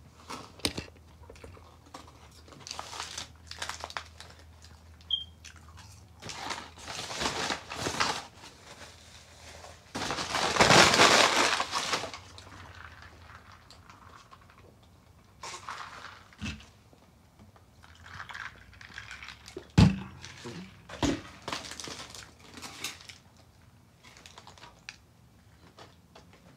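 Paper burger wrapper crinkling and rustling in the hands, with chewing between. The longest, loudest crinkle comes about ten seconds in, and there are two sharp knocks around twenty seconds.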